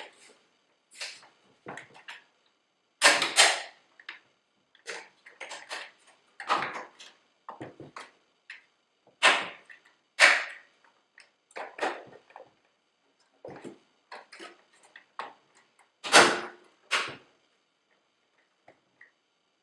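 Irregular clicks, knocks and short scrapes of computer hardware being handled and fitted back into a workstation's chassis, with the sharpest knocks about three, ten and sixteen seconds in.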